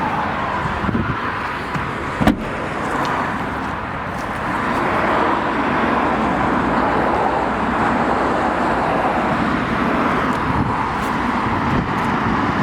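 Steady road traffic noise, with a single sharp knock about two seconds in.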